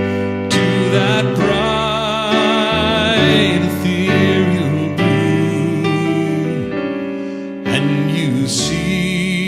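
Gentle recorded music: a wavering melody over held chords, a quiet stretch between sung lines.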